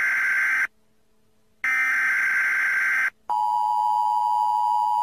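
Electronic beep tones: a buzzy beep that stops under a second in, a second identical beep lasting about a second and a half after a short silence, then a steadier, lower and purer tone.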